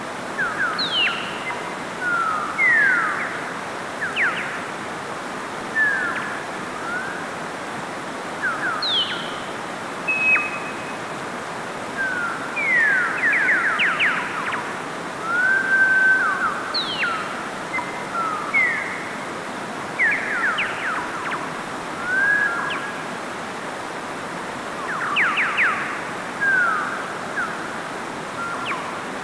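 Mountain stream rushing steadily over rocks, with birds calling over it: short whistles and quick rising and falling chirps every second or so, louder than the water.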